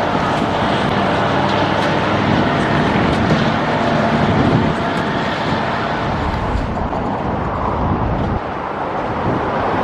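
Strong wind buffeting the microphone: a loud, steady rumble that rises and falls with the gusts.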